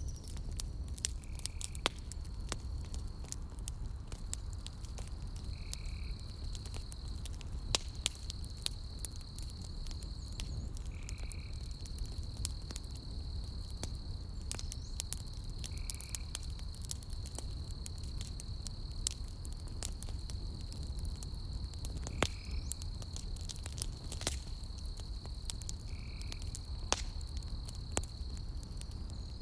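Campfire burning, with a low steady rumble and scattered sharp crackles and pops of burning logs. Over it an insect trills in one steady high tone with brief breaks, and a short chirp repeats every five seconds or so.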